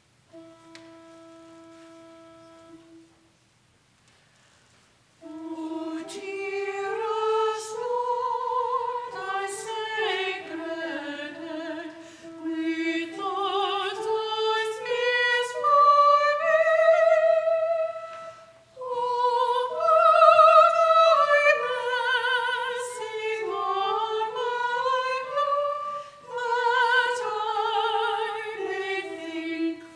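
Choir anthem starting: a single steady note is sounded for about three seconds, then after a short pause unaccompanied singing of one melody line with vibrato begins and carries on.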